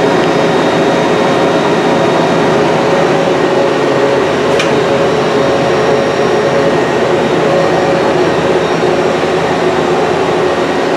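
Steady running hum of a powered CNC Swiss-type lathe and its bar loader, with several steady tones, and a single click about four and a half seconds in.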